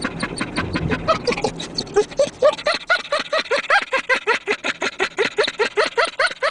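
Dog 'laughing': a fast run of short panting huffs, about six a second, which take on a short squeaky pitch from about two seconds in.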